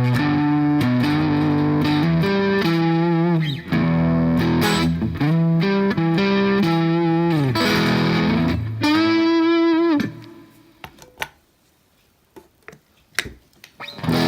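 Electric guitar played through an overdrive pedal set for mild drive: chords and single notes with string bends. The playing stops about ten seconds in, leaving a few faint clicks.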